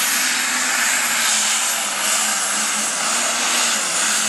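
Turbocharged super stock pulling tractor engine running flat out, a loud steady roar with a strong hiss above it and no letup.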